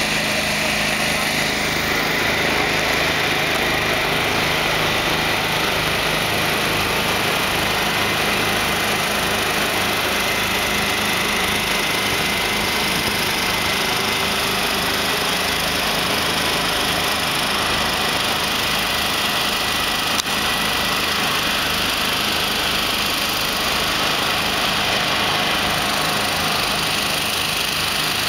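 Heavy-haulage diesel engines of the truck and multi-axle modular trailer running steadily under load as the rig creeps past at walking pace, with an even low pulsing.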